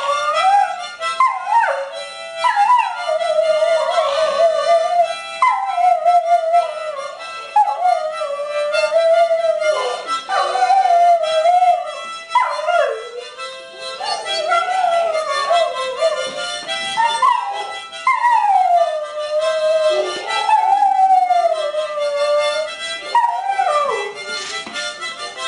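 A dog howling along to a harmonica tune: a run of long, wavering howls with short breaks between them, each sliding in pitch at its start and end, over the harmonica's steady held chords.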